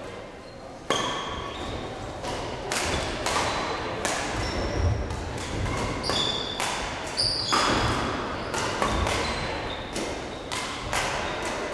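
Badminton play: irregular sharp racquet hits on shuttlecocks and short high squeaks of sports shoes on the court floor, starting about a second in.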